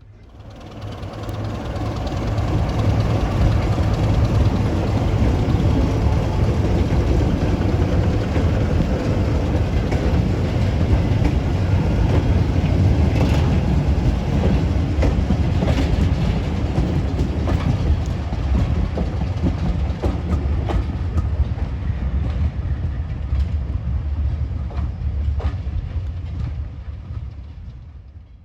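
Diesel-hauled heritage train passing close by: a deep engine note with wheels clicking over the rail joints, building up over the first couple of seconds and easing off near the end.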